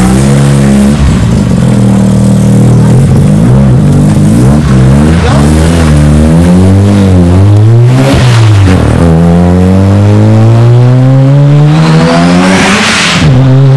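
Mazda RX-3's three-rotor rotary engine, revved up and down several times, then pulling through one long climb in revs as the car accelerates away, with the revs dropping back near the end.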